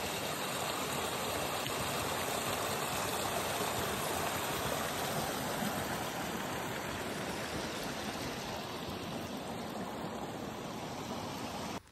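Small mountain stream running over rocks: a steady, even rush of water that cuts off suddenly near the end.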